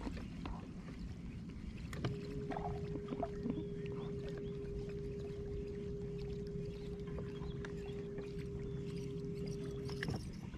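Boat motor running, with a steady whine that starts about two seconds in and cuts off near the end, over a low steady hum.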